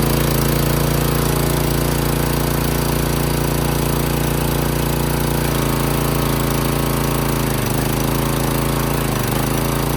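Briggs & Stratton small engine on a Craftsman pressure washer running steadily at speed, now that the clogged fuel-bowl bolt has been cleaned and the tank refilled. The engine speed sags briefly twice near the end.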